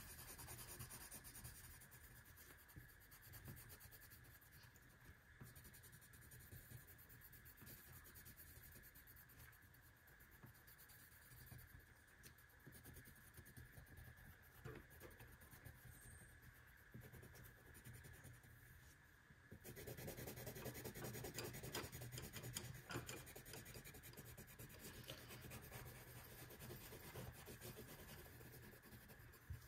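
Faint scratching and rubbing of a marker coloring on paper, with a steady faint high tone underneath. It grows louder and busier about two-thirds of the way through.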